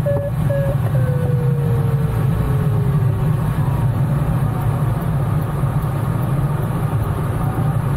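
Steady low rumble of air rushing past the cockpit of an ASW 28-18E glider in flight, with a faint tone gliding downward about a second in.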